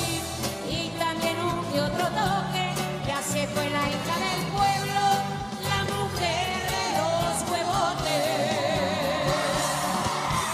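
Live regional Mexican band music: brass over tuba and electric bass, with a singing line that wavers widely in pitch in the second half.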